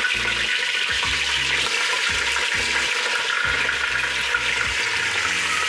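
Raw mutton pieces sizzling in hot oil with whole spices in a pressure cooker, turned with a wooden spoon: a steady frying hiss as the meat starts to sear.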